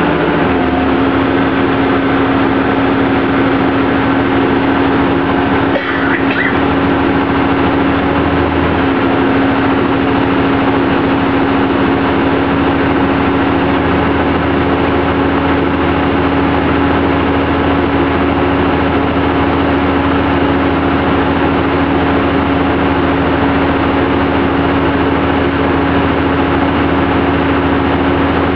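School bus diesel engine running at a raised idle, a steady drone with a constant hum, while its air compressor builds the brake air pressure back up. There is a brief click about six seconds in.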